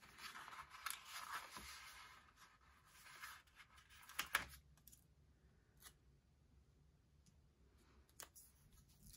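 Paper sticker sheets rustling and crackling as they are handled, with a sticker being peeled off its backing and a sharp crackle about four seconds in. After that only a few faint light taps.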